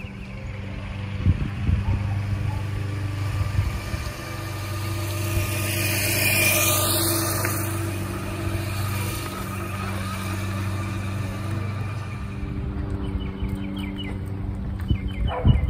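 A car passes along the street, rising to its loudest about six and a half seconds in and then fading away, over a steady low hum.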